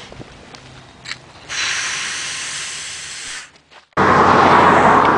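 Handling clicks and rustle from a handheld camera, then a steady hiss. About four seconds in, after a short near-silent gap, a loud, steady rush of highway traffic noise begins.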